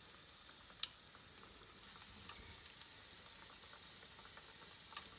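Breaded potato triangles shallow-frying in hot ghee in a frying pan: a steady soft sizzle. A sharp click sounds a little under a second in, with two fainter ticks later.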